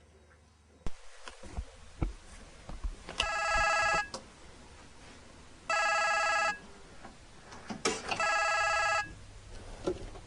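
Telephone ringing: three warbling electronic rings, each about a second long and about two and a half seconds apart, the first some three seconds in. Scattered knocks and clicks come before and between the rings.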